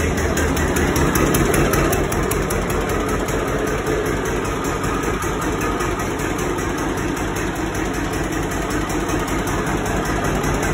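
John Deere tractor engine idling steadily after start-up.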